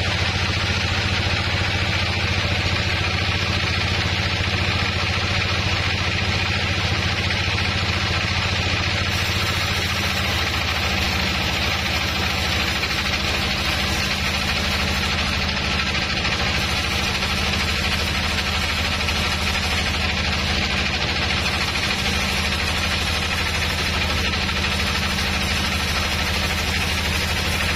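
Large band sawmill running steadily, its blade cutting lengthwise through a wide log: a constant low machine hum with the steady noise of the cut on top.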